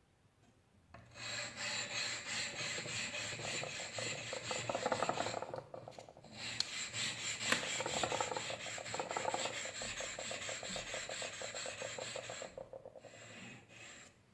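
A hand file rasping steadily across the steel of an axe head, working it so it will scrape sparks from a ferrorod. It comes as two long runs of rapid scraping, with a short pause about five and a half seconds in.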